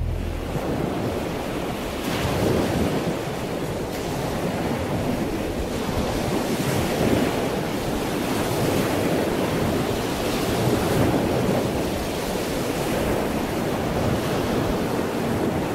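Wind buffeting the microphone: a steady rushing noise that swells and eases a little, with no other sound standing out.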